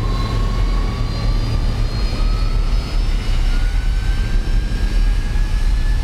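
Airbus A320 jet engines running loud, a dense roar over a low hum, with a thin whine that rises slowly in pitch as the engines spool up.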